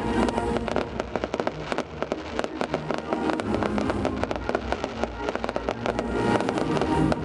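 Fireworks going off in a dense, continuous run of sharp crackles and pops, with many bursts a second.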